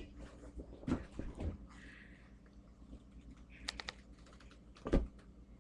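Irregular clicks and taps on a laptop keyboard, picked up close by the laptop's own microphone, with a quick run of clicks about two-thirds through and a heavier knock near the end.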